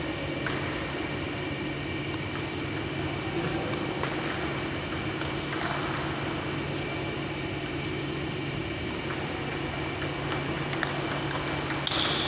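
Steady hum of pedestal fans in a sports hall, with scattered light clicks of a table tennis ball striking paddles and the table during a rally. A brief, sharper high sound comes near the end.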